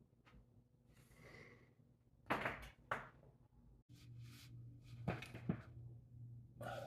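Spinal joints cracking as the back is stretched: several sharp pops, in two pairs about three seconds apart, with a breathy sigh before the first.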